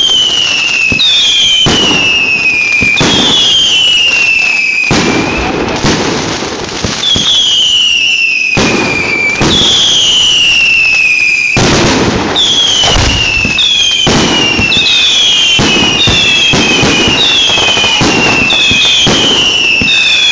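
Fireworks going off close by: a string of whistles, each falling in pitch, one after another and coming faster near the end. Under them run continuous crackling and sharp pops.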